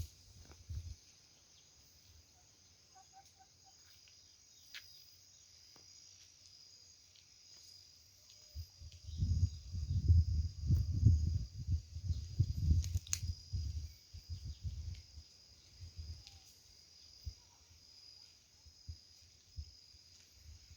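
Steady high-pitched chirring of insects, crickets or the like, running under everything. From about nine to fourteen seconds in, a run of loud low rumbling thumps, the loudest sound, then a few weaker ones.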